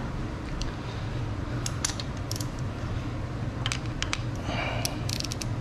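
Small metallic clicks and taps from a wrench and screwdriver working a rocker-arm adjusting screw and locknut on a Honda B18B1 cylinder head during a valve lash adjustment. The clicks come in a few short clusters over a steady low hum.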